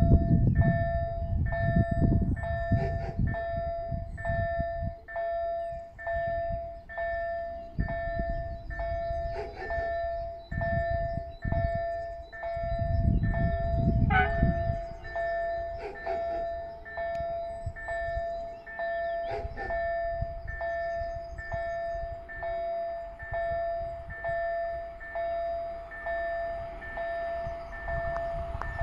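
Electronic warning tone of a railway level-crossing signal, repeating about once a second, warning that a train is approaching. Gusts of wind rumble on the microphone, strongest near the start and about halfway through.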